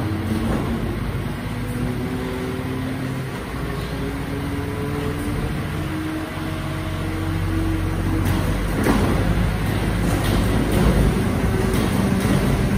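Rear-end loader garbage truck running its hydraulic compactor cycle: the engine and hydraulic pump whine and climb in pitch in steps, then clanks and rattles take over from about nine seconds in.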